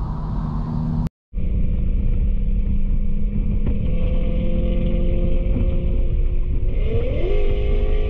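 Infiniti Q50's 3.0-litre twin-turbo V6 heard inside the cabin over steady road rumble, holding a steady speed on the highway. About seven seconds in the revs jump and keep climbing as the car accelerates hard. The sound drops out completely for a moment about a second in.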